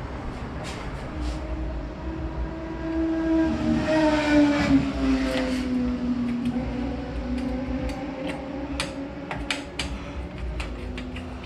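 A long, steady horn-like tone that swells in the middle and dips slightly in pitch, with scattered light clicks and knocks of hardware being handled.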